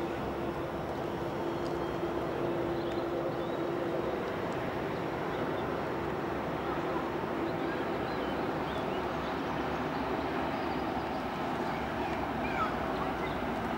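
Steady mechanical hum and rumble of locomotives standing in a railway yard, with a held low tone through the first few seconds and faint bird-like chirps toward the end.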